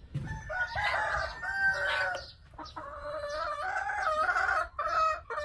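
Chickens calling inside the coop: two long, drawn-out calls, the first lasting about two seconds and the second starting about halfway through and running to near the end.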